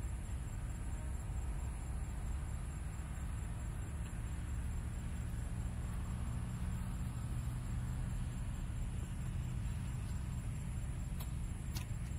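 Open-field ambience: a steady low rumble under a steady high, thin insect drone, with a few faint ticks near the end.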